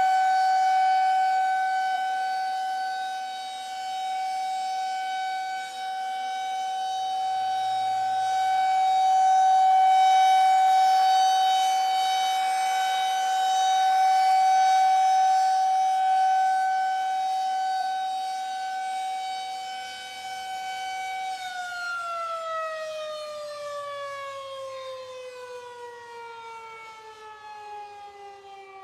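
Siren holding one steady high tone that swells and fades slowly in loudness. About three-quarters of the way through it winds down, its pitch falling steadily as it fades.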